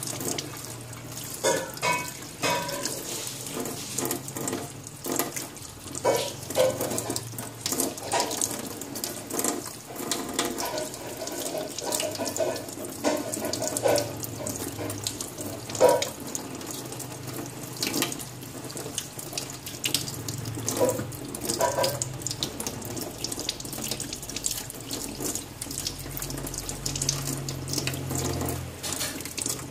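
Kitchen tap running into a stainless steel sink while hands rinse and rub raw meat under the stream: a steady rush of water broken by irregular splashes as the meat is turned and handled.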